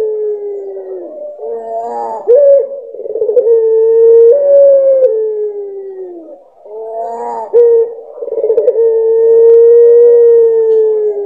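Puter pelung, a domestic ringneck (barbary) dove bred for its long call, cooing a series of long drawn-out notes. Each call opens with a short rough, wavering stretch, then holds a steady note that slides down in pitch at the end. The last note is the longest, about four seconds.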